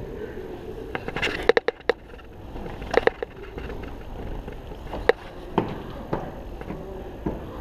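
Airsoft guns fired singly on semi-auto: sharp cracks at irregular intervals, a quick cluster of four or five about a second in, a pair near three seconds, then scattered single shots.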